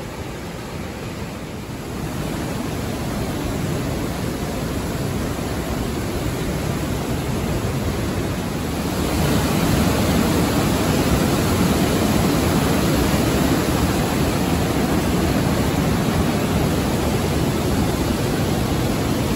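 Fast river water rushing through weir sluices and breaking over a standing wave as whitewater: a steady, loud rush that grows louder about nine seconds in.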